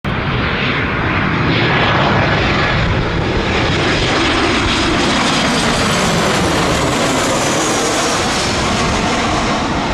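Boeing 737-800 jet airliner passing low overhead on landing approach, its twin turbofan engines a steady loud roar with a faint high whine that drops slightly in pitch as it goes over.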